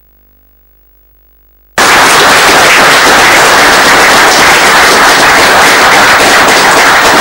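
Studio audience applauding: after near silence with a faint hum, loud dense clapping starts abruptly about two seconds in and keeps going steadily.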